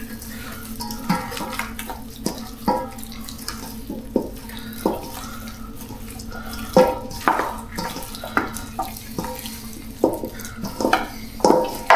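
Hands kneading raw chicken legs coated in adjika in a basin: irregular wet squelches and slaps, several a second, over a steady low hum.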